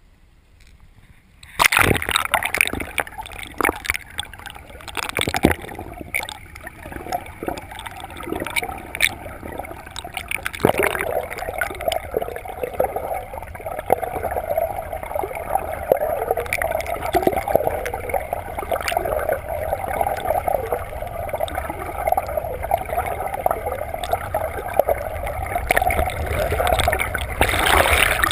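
Water heard through a camera under the lake surface. It goes under about a second and a half in, then gives muffled gurgling and rushing water with scattered knocks as it is moved through the water. The rushing is steadier from about ten seconds in.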